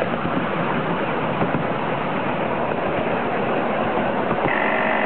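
Miniature railway train running along its track, heard from an open passenger carriage as a steady rushing rumble with wind on the microphone. Near the end a steady high-pitched tone sets in and holds.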